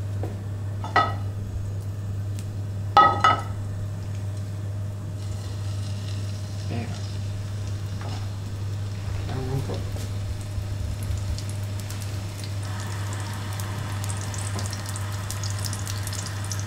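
Rolled, string-tied rabbit saddle searing in hot oil in a frying pan on a gas burner, sizzling, with the sizzle louder near the end. Two metallic clanks of the pan, about one and three seconds in.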